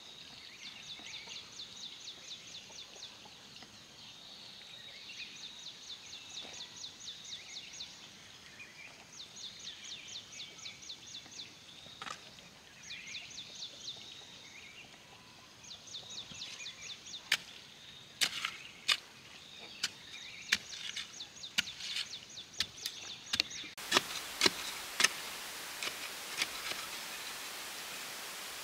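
Hand hoe striking stony soil, a run of sharp knocks about two a second through the second half. Before that, a high, rapid trilling call repeats in short phrases in the background.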